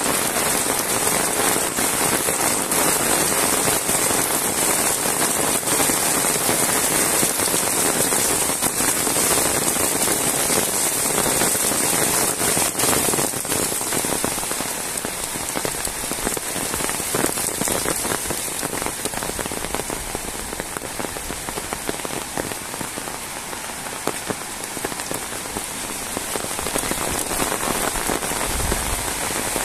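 Heavy rain falling steadily on a wet paved road and the grass and trees beside it: a dense hiss of countless drops spattering. It eases a little in the middle and picks up again near the end.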